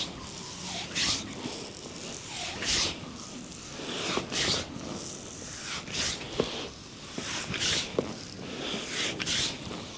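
Hands rubbing over skin in repeated massage strokes: a rough swishing friction sound about once a second, with a few short sharp clicks between strokes.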